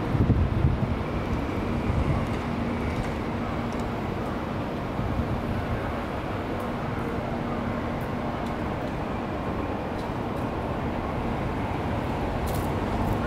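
Steady city street traffic noise, with a low steady hum from an engine or machine that stops about nine seconds in. A few low thumps come in the first second.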